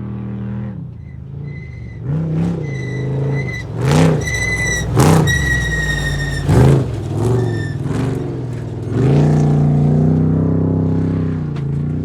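Off-road race car's engine revving hard, rising and falling again and again, with a steady high whine above it for the first several seconds and a few sharp loud peaks along the way.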